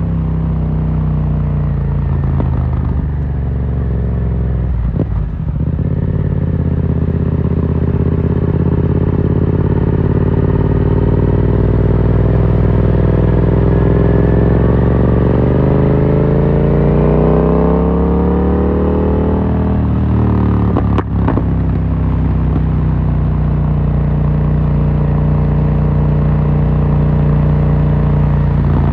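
Yamaha MT-07's parallel-twin engine running through an Akrapovic carbon full exhaust while riding. It runs steadily, dips briefly about five seconds in, climbs steadily in pitch through the middle as the bike accelerates, breaks off sharply about twenty-one seconds in as at a gear change, then settles into steady running.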